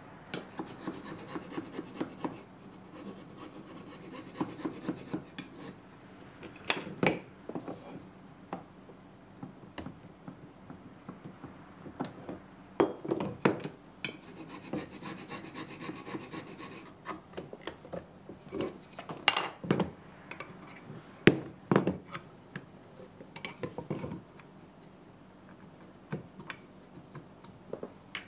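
A hand tool scraping and rasping at the wood inside the blade opening of a Japanese plane block, in strokes that come in two long stretches, with several sharp knocks between them.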